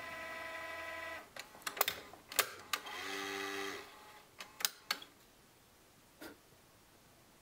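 Digital answering machine: a steady electronic tone that cuts off about a second in, then clicks of its buttons being pressed, a short lower beep, and a few more clicks.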